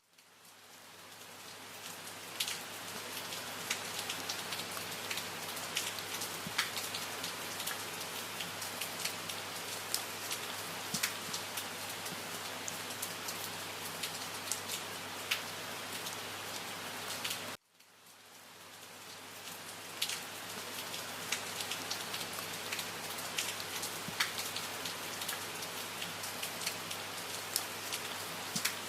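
Steady rain falling, an even hiss with the sharp pats of individual drops. It cuts out abruptly at the start and again about halfway through, each time fading back in over a couple of seconds, like the seam of a looped recording.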